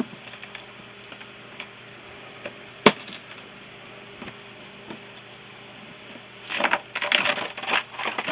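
Tools and small items being handled in and around a toolbox: a few scattered clicks, a sharp knock about three seconds in, then a stretch of clattering and rustling near the end.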